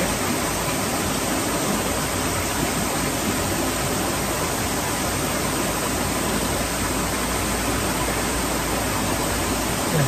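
A stream rushing steadily, a continuous even wash of running water.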